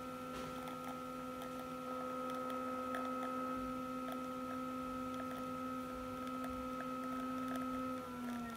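La Marzocco Strada EP espresso machine's pump running with a steady hum of several pitches while a shot extracts at about 9 bar in manual pressure mode. Its pitch drops slightly near the end as the pressure is eased back.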